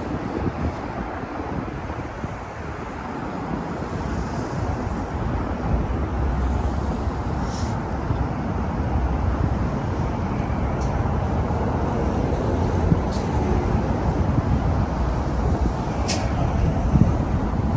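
Steady road traffic noise from cars moving along a busy multi-lane road, with a brief sharp click near the end.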